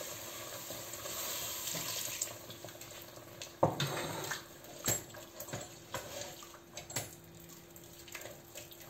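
Wooden spoon stirring milk into a hot flour-and-fat roux for béchamel in a stainless steel pot, the wet mixture sloshing. A steady hiss fades after the first two seconds or so, and the spoon knocks against the pot several times.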